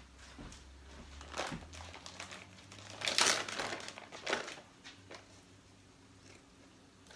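Plastic bag of deviled egg filling crinkling and rustling as it is handled, in a few separate bursts, the loudest about three seconds in.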